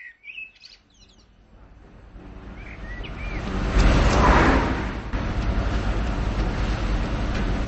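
Birds chirping, then a small car's engine approaching and growing louder, passing close about four seconds in, then running steadily.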